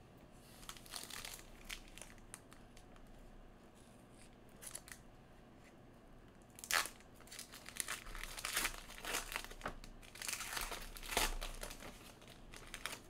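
Foil wrapper of a Panini Elite trading-card pack being torn open and crinkled by hand. There are scattered crackles at first, one loud sharp crackle about seven seconds in, then dense crinkling in the last few seconds.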